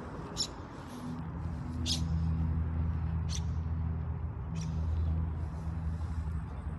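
Footsteps crunching on gravel, a few sharp crunches spaced a second or more apart, over a steady low hum.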